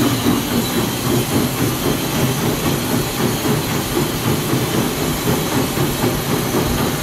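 Cab noise of a 2-6-0 steam locomotive under way: a steady hiss of steam over the rumble and clatter of the running engine.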